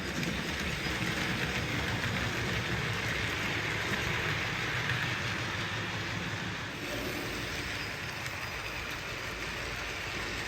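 Model 'Schools' class steam locomotive running along the layout track: a steady rumble of wheels on rail and motor, easing slightly about seven seconds in.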